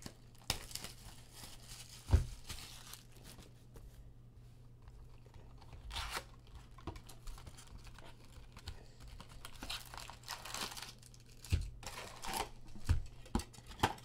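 A Topps Chrome jumbo box of trading cards being torn open and unpacked: cardboard tearing and rustling, then the card packs' wrappers crinkling as they are lifted out and stacked. Several sharp knocks, the loudest about two seconds in and more near the end, as the box and packs hit the table.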